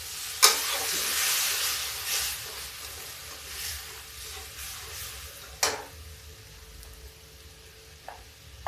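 Water poured into a hot aluminium kadai of frying masala sizzles loudly about half a second in, then the sizzle dies down as the masala is stirred with a slotted spoon. One sharp clink of the spoon against the pan comes a little past the middle.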